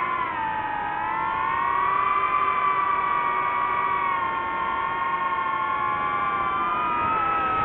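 DJI FPV drone's motors and propellers whining steadily in flight. The pitch dips just after the start, then rises and holds, and shifts again near the end as the throttle changes.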